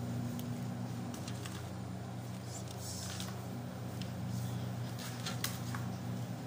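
Steady low hum, with faint papery rustles and light taps as raw sambusa pastries are picked up and laid on a wooden tray.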